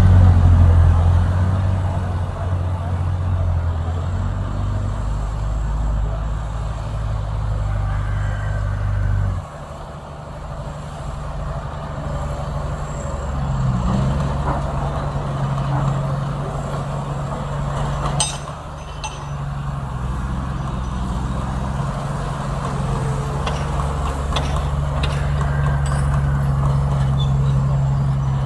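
Heavy diesel engine of earthmoving machinery running under load. Its deep note drops off sharply about nine seconds in and comes back at a higher pitch a few seconds later. One sharp metallic knock comes about eighteen seconds in.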